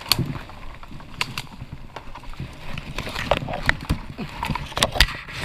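Irregular crackling, snapping and rustling of leaf litter and mushroom stems being handled while wild mushrooms are picked by hand, with a few sharper clicks near the end.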